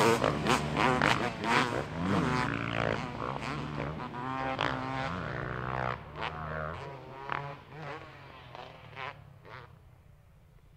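Dirt bike engines revving up and down repeatedly as the bikes ride off over the jumps, growing fainter until they are gone near the end.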